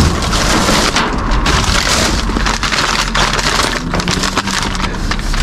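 Plastic and paper bags rustling and crackling as hands rummage through rubbish inside a wheelie bin.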